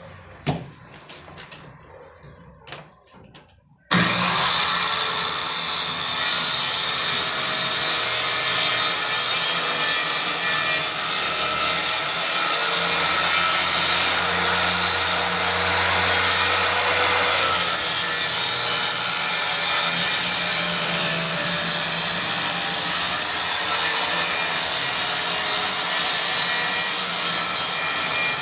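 A few light knocks, then about four seconds in a circular saw starts abruptly, cutting through plywood with a steady, loud whine.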